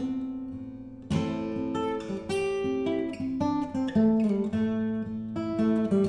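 Steel-string acoustic guitar played solo in an instrumental passage of picked notes and strummed chords. A chord rings out and fades for about a second, then a strong strum starts the next phrase.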